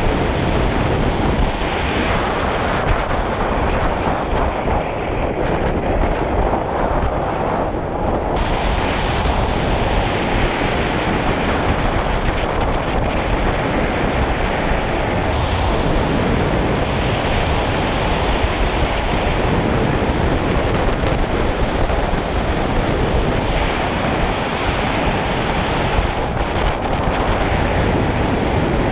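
Steady, loud rushing of wind buffeting the microphone.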